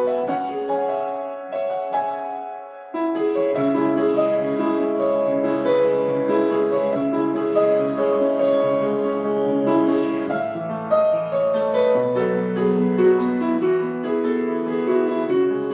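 Solo piano playing a flowing, gentle melodic piece in sustained chords; about three seconds in it softens briefly, then deeper bass notes come in beneath the melody.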